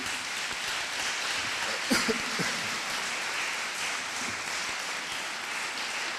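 Audience applauding steadily in a large hall at the end of a talk, with a short voice calling out about two seconds in.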